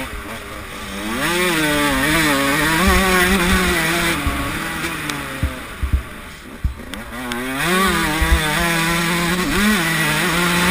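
Suzuki RM144 two-stroke motocross bike engine, heard from the rider's helmet camera, revving hard under way. The revs climb about a second in and hold, fall away for a couple of seconds in the middle as the throttle is shut, with a few knocks, then climb again and hold to the end.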